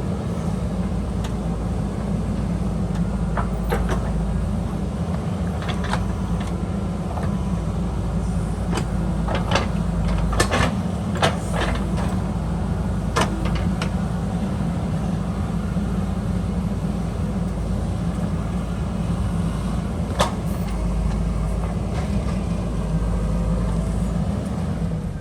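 JCB backhoe loader's diesel engine running steadily as it works, with a scatter of sharp clanks and knocks, several close together near the middle and one more later on.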